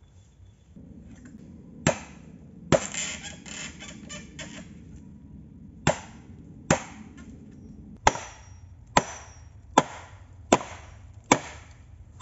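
A machete chopping bamboo stems: about ten sharp, loud blows, settling into a steady rhythm of just over one a second in the second half, with a crackle of splitting stems and leaves after the second blow.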